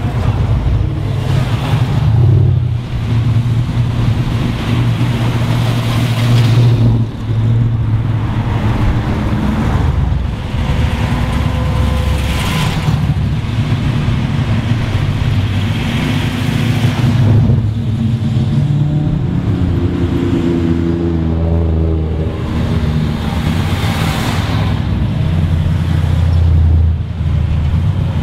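A stream of street machines and muscle cars cruising past one after another, their engines running loud and deep, swelling as each car goes by. One engine revs up about twenty seconds in.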